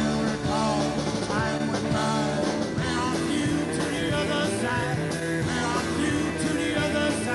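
Live rock band playing an instrumental passage, with an amplified harmonica held cupped to a microphone bending notes over electric guitar, keyboards and drums.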